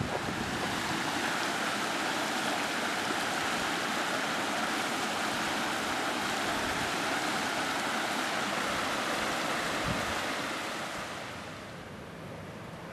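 Steady hiss of steam jetting from a volcanic fumarole vent, fading down near the end.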